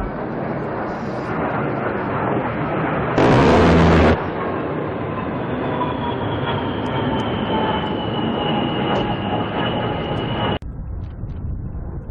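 A-10 Thunderbolt II's TF34 turbofan engines running with a high whine that falls slowly in pitch as the jet passes. About three seconds in comes a loud, one-second burst that fits its GAU-8 rotary cannon firing. Near the end the sound cuts off abruptly to quieter jet noise.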